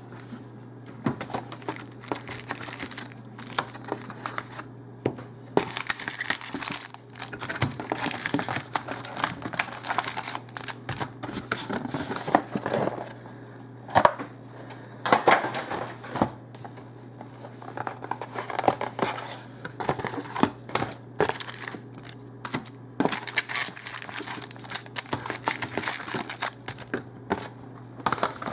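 Plastic and foil packaging of a Magic: The Gathering product being torn open and crumpled by hand: continuous crinkling with small clicks and rustles.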